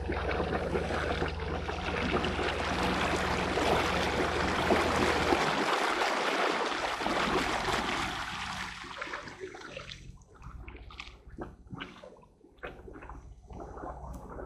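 Jet ski idling along slowly on calm water: a steady low engine hum under the rush of water along the hull. About five seconds in the hum drops away, and from about eight seconds the water noise thins to irregular lapping and splashing, with the low hum returning near the end.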